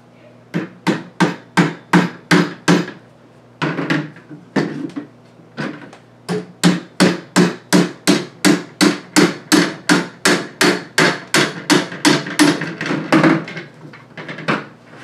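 Rubber mallet knocking repeatedly on a katana's handle at the guard to work the handle loose from the blade's tang. About seven knocks come in a quick run, a few more follow after a short pause, and then a long steady run goes at about three knocks a second, tailing off into lighter taps near the end.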